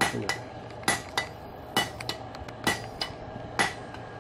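Hand hammer striking a red-hot railroad spike on a steel anvil, flattening it: about nine sharp blows at roughly two a second, often in close pairs, each with a brief metallic ring from the anvil.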